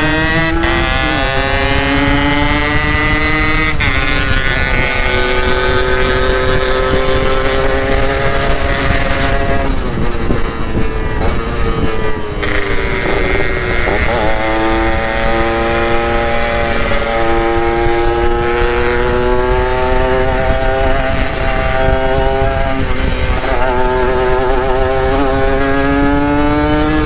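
Two-stroke motorcycle engine running under way, its pitch climbing as it revs and dropping back at each gear change, several times over. A steady rush of wind noise sits underneath.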